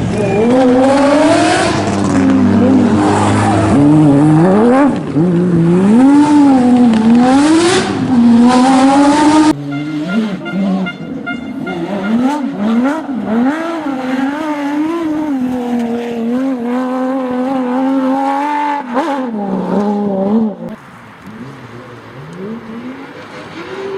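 Porsche sports car engines revving hard, the pitch climbing and falling again and again through gear changes. The sound switches abruptly to a different recording about nine and a half seconds in, and turns quieter a few seconds before the end.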